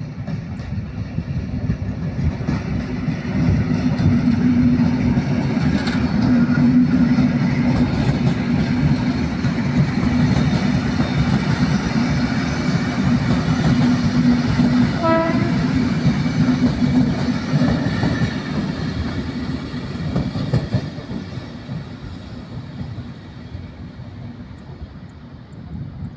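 ŽCG series 412 electric multiple unit passing close by, its wheels rumbling on the rails. The sound builds over the first few seconds and fades over the last several as the train moves off, with a very short horn toot about halfway through.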